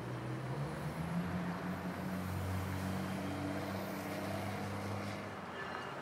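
GO Transit diesel commuter trains running, giving a steady low engine drone with a faint rail-yard hiss over it.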